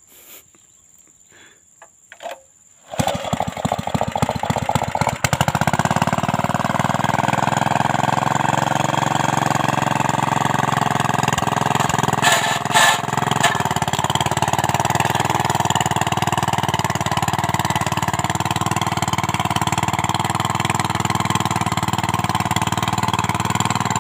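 Small single-cylinder petrol engine of a mini cultivator starting about three seconds in, picking up speed a couple of seconds later, then running steadily as the tiller digs, with a couple of short knocks midway. The engine burns oil, which its owners put down to loose piston rings.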